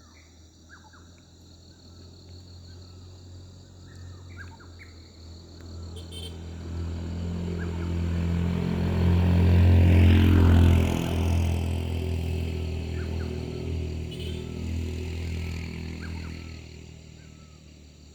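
A motor vehicle's engine passing by, growing louder over several seconds, loudest about ten seconds in, then fading away. Insects keep up a steady high buzz and birds chirp now and then throughout.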